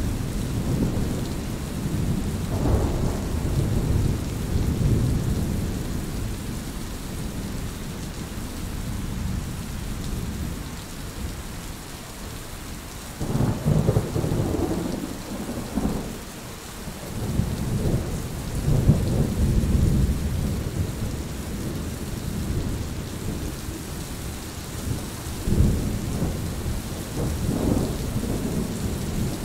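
Steady rain with low rolling thunder that swells and fades several times, loudest about halfway through.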